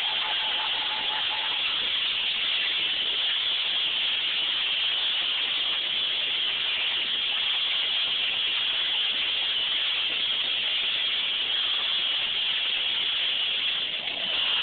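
Steady, loud hissing noise with no clear beat or tone.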